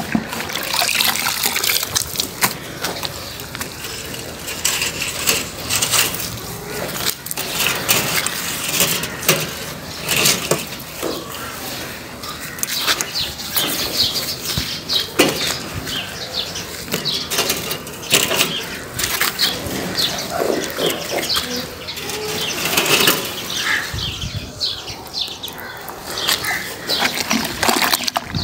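A wet cloth sloshed in a tub of soapy detergent water and scrubbed over a solar panel's glass, in irregular wiping strokes with splashes and drips.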